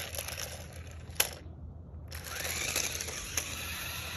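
Toy remote-control car's small electric motor whirring as it churns through lawn grass, with one sharp click about a second in.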